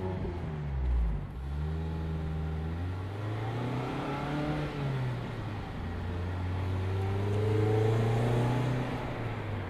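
Mazda ND2 Miata four-cylinder engine and exhaust while driving, the engine note dropping and rising with throttle and gear changes, then holding a steady, slightly rising drone for a few seconds near the end.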